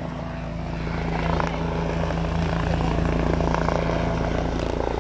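Aircraft engine running steadily, a loud low drone with no change in pitch.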